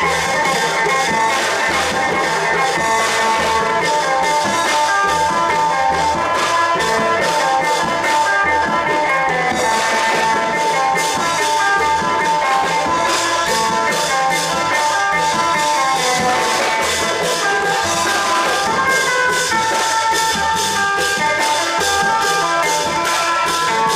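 Thai long-drum (klong yao) ensemble playing: a fast, even drumbeat with small cymbals and shakers, over a melodic line of held notes.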